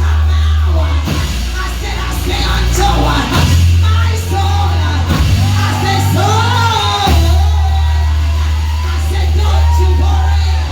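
Gospel music: a singer's voice over a band, with loud held bass notes that change pitch every few seconds.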